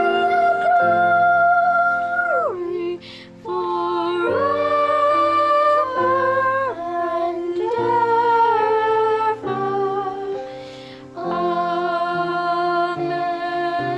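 Sung music: voices holding long notes that move in steps from one pitch to the next, in phrases with two short breaks, about three seconds in and around eleven seconds in.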